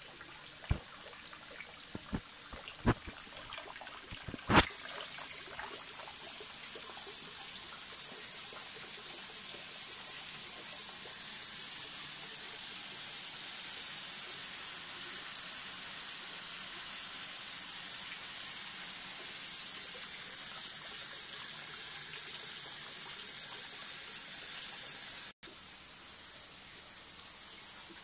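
Water running from the spout of a shrine purification fountain (temizuya) into its basin, a steady trickling splash. There are four sharp clicks in the first five seconds, the last the loudest.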